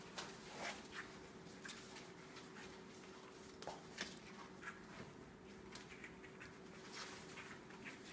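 Faint scattered taps and scrabbles of young puppies moving about on foam floor mats and nosing at a cardboard box, over a faint steady hum.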